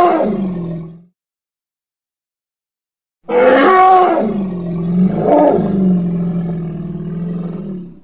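Elephant roar sound effect, of the kind used for elephants and mammoths. The tail of one call fades out about a second in; after a two-second pause a long call starts, bends down in pitch and settles into a low, steady, held tone, lasting nearly five seconds.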